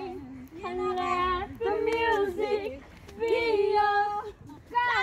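A high female voice singing held notes, in phrases about a second long with short pauses between them.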